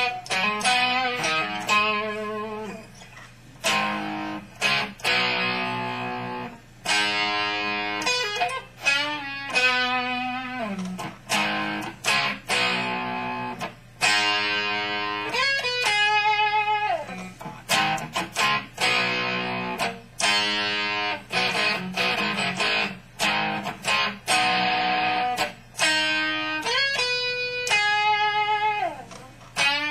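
Electric guitar played through an amplifier: chords and single notes struck and left to ring out, phrase after phrase with short pauses between.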